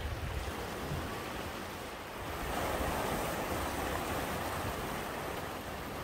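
Sea waves washing into a narrow rocky inlet and breaking against the rocks, one surge swelling up about two and a half seconds in and slowly easing off. Wind rumbles on the microphone underneath.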